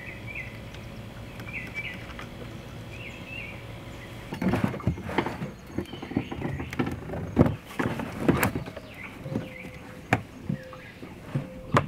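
Clunks and knocks of a Generac iQ3500 inverter generator's plastic housing being handled and tipped over to drain its engine oil out of the side, beginning about four seconds in and loudest in several sharp knocks. Before the handling starts, birds chirp in the background.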